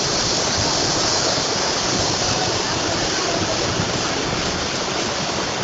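Steady, even rushing of water with no breaks, a flood-time sound of fast-moving water and downpour.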